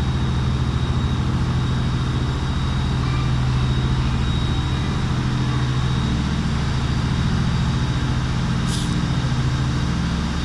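Ferry engines droning steadily with a low hum, with a brief hiss near the end.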